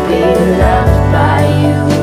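Background pop music with a steady bass line and a wavering melody; no sung words in these two seconds.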